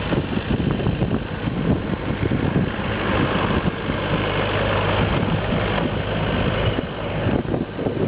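Four-cylinder Perkins diesel engine of a 1996 Scat Trak 1700C skid steer loader running steadily.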